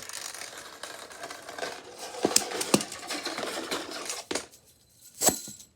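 Fidget toys rattling and clattering as they are handled and taken out of a drawer, with several sharp clicks of toys knocking together about two to three seconds in and another near the end.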